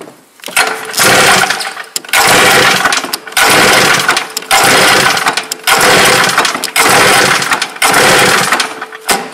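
Polaris 600 XLT three-cylinder two-stroke snowmobile engine being cranked over for a compression test on the mag-side cylinder, in about seven one-second bursts with short breaks between them. The gauge reads about 140 psi, which is called pretty good.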